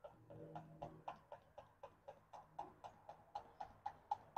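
Motor oil glugging faintly out of a one-quart plastic bottle into a funnel, a steady rhythm of about four glugs a second as air bubbles back into the tipped bottle.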